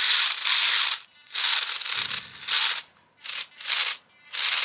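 Plastic RC car body shell rubbing and scraping against the micro car's chassis as it is pushed on, in several short scratchy bursts with brief pauses between them.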